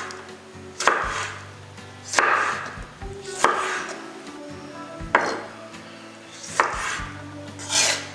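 A kitchen knife cutting through fresh vegetables on a cutting board, six separate cuts at an unhurried pace, each a sharp knock followed by a short scraping hiss. Soft background music plays underneath.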